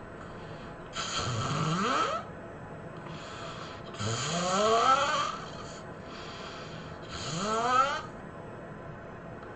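A person snoring heavily: three loud snores about three seconds apart, each rising in pitch, with softer breaths between them.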